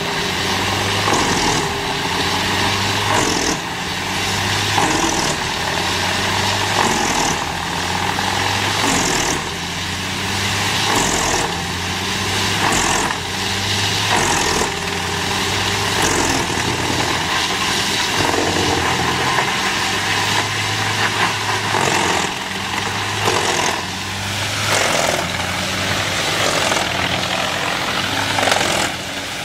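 Wood chipper running at full power, its engine droning steadily while wood is fed through, with irregular noisy surges of chipping every second or two.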